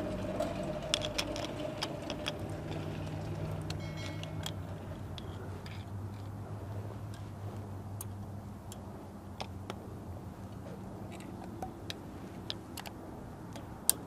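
Small, irregular metal clicks and taps of a screwdriver and pick on a semi-truck wheel hub as the spindle nut's locking ring is worked into its teeth, over a steady low hum.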